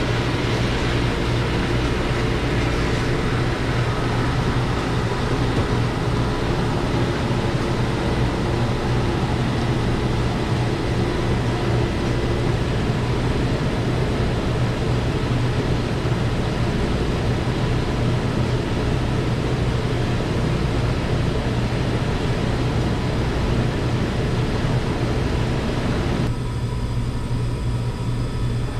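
Commercial dish machine running: a steady low hum under a broad rushing noise. The rushing cuts off suddenly about 26 seconds in, leaving the hum.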